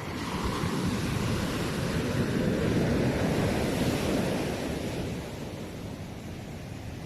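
Sea waves breaking on the shore: a surge of surf noise that swells over the first few seconds and then washes away.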